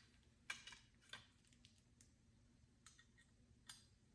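A few faint, scattered clicks of small metal parts knocking together as a metal door handle is worked apart by hand, its set screws loosened.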